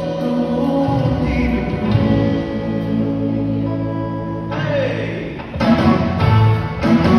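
A live worship band and singers perform a gospel song, with long held sung notes over sustained chords. About five and a half seconds in, the music turns louder and more rhythmic.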